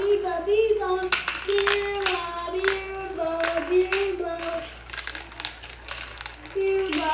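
A child singing a wordless tune in long, gliding notes, over sharp clicks and clacks of marbles running along a marble run.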